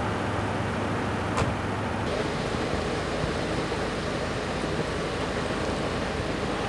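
A fire truck's engine idling steadily, with one sharp click about a second and a half in. About two seconds in, the hum gives way to a more even rumble of background noise.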